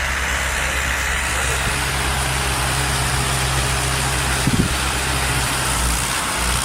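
A large engine running steadily at a low, even speed, with a short knock about four and a half seconds in.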